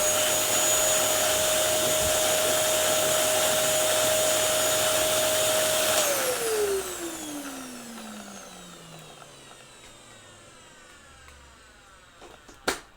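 Dyson DC07 upright vacuum cleaner running at a steady whine for about six seconds. It is then switched off, and the motor winds down with a slowly falling pitch. A single sharp click comes near the end.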